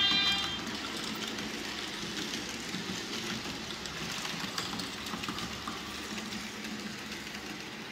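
Märklin H0 TGV Duplex model train running past on metal track: a steady rolling hiss and rumble with faint clicks from the wheels. A horn-like tone cuts off about half a second in.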